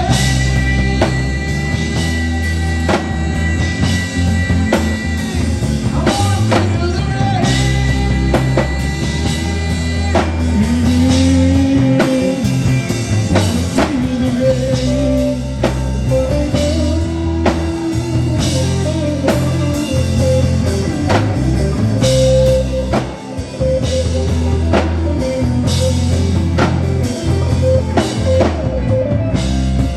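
Instrumental break in a gospel rock song: a drum kit keeps a steady beat under guitars and a lead line that bends up and down in pitch, with no sung words.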